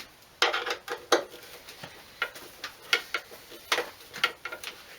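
Light metallic clinks and knocks at irregular intervals, about a dozen in all, as metal intake piping, couplers and hose clamps are handled and worked loose from the engine bay.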